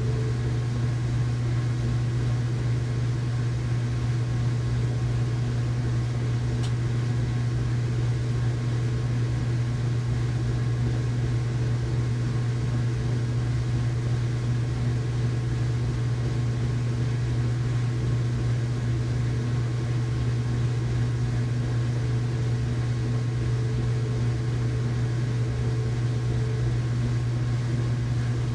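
Household washing machine running its rinse cycle: a steady low motor hum with a few faint steady tones above it, and one faint click about seven seconds in.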